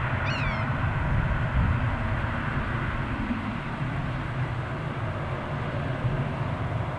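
Steady low outdoor rumble throughout. About a quarter-second in, one short, falling bird call.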